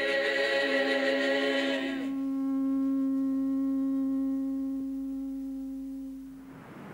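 Voices chanting in Māori. About two seconds in, the chant settles on one long held note that slowly fades away.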